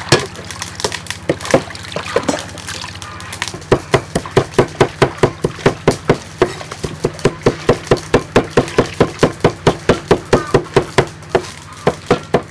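Water sloshing as cabbage leaves are washed by hand in a metal bowl, then, from about three and a half seconds in, a cleaver chopping garlic on a round wooden chopping board in a quick, steady rhythm of about four strikes a second.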